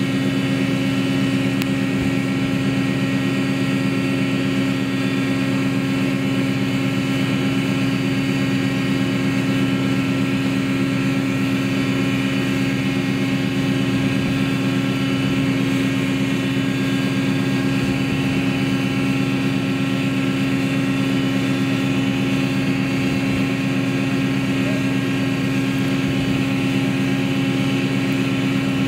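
Steady drone of a ship's engines, an unchanging hum of several held tones over a low rush of noise.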